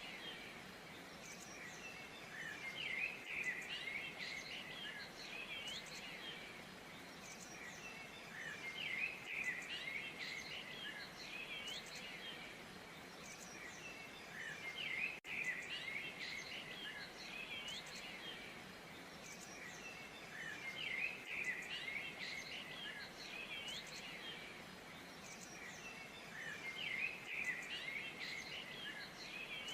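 Songbirds chirping and twittering over a steady wash of falling water. The bird calls come in bursts about every six seconds.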